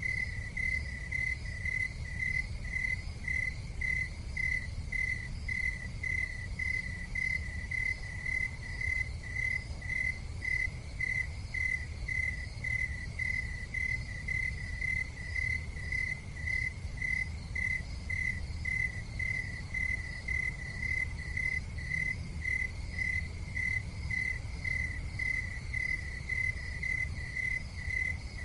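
A cricket chirping in a steady, even rhythm of about one and a half chirps a second, over a low steady rumble.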